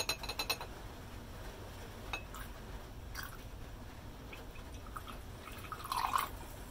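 Faint trickling of acidified cobalt solution poured in thin streams from small glass beakers into glass beakers of potassium nitrite solution. A few light glass clinks come at the start, and a small splashy patch comes near the end.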